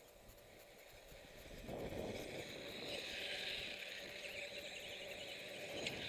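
Radio-controlled dirt bike's motor and tyres running on a clay track, faint at first and growing louder from about two seconds in as the bike comes closer.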